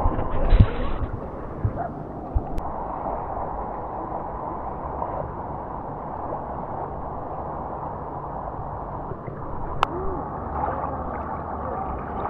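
Steady rush and gurgle of fast-flowing river water around a kayak, with a couple of knocks in the first second and a sharp click near the end.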